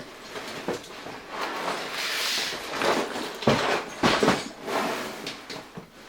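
Cardboard LEGO set box being opened by hand: the flaps and tabs scrape and tear with a rough rustling, and the box knocks twice about three and a half and four seconds in.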